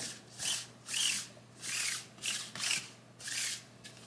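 A sticky lint roller rolled back and forth over a fleece hoodie to lift lint before heat pressing: about seven quick strokes, roughly two a second, stopping shortly before the end.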